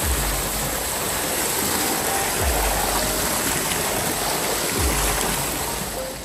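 Steady rushing of flowing river water, with a few dull low bumps along the way.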